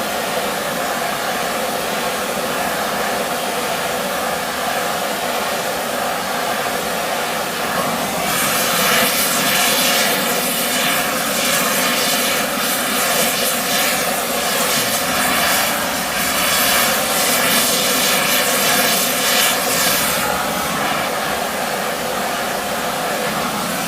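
Steady machine hum with a crackling welding arc over it, starting about a third of the way in and stopping about twelve seconds later.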